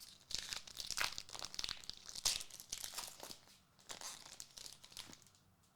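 Foil trading-card pack wrapper crinkling and tearing as it is opened by hand, a dense run of sharp crackles that stops shortly before the end.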